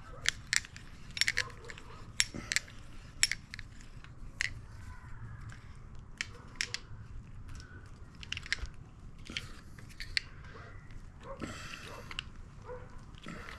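Hand tools and metal bicycle parts being worked: irregular sharp clicks and taps, coming thick at first and then more spread out, with a brief scraping rustle near the end.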